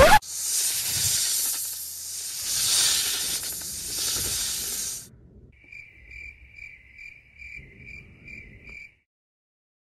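A loud, even hiss that swells and fades for about five seconds, then stops. It is followed by faint cricket chirping, about three chirps a second, lasting roughly three seconds.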